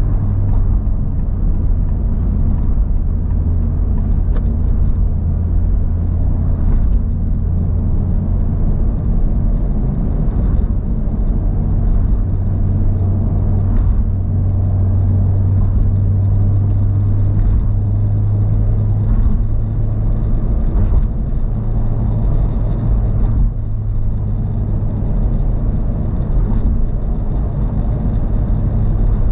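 Honda Civic Type R FL5 on the move: a steady low drone of engine and road noise, with a few faint knocks at irregular intervals.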